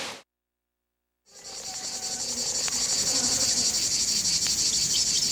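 A dense, steady, high-pitched chorus of insects fades in after about a second of silence and then holds.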